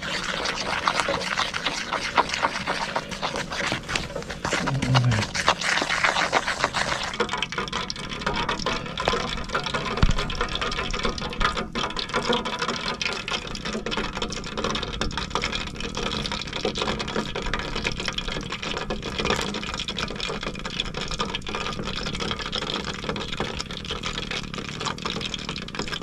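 Frittelle frying in hot oil: a steady crackling sizzle that turns duller about seven seconds in.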